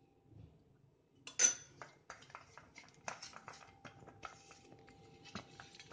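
Metal idli plate being handled and rubbed with oil by hand: a clink about a second and a half in, then a run of light metallic taps and rubbing.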